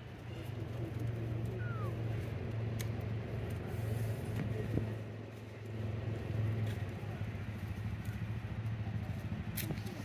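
A motor engine running steadily, a low hum that eases briefly about halfway through and then comes back up. A short falling squeak comes a little under two seconds in, and a few faint clicks.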